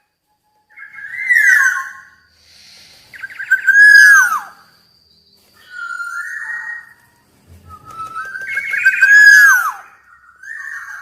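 Black-naped oriole singing: loud fluty whistled phrases with notes that slide down in pitch, about five phrases with short pauses between them.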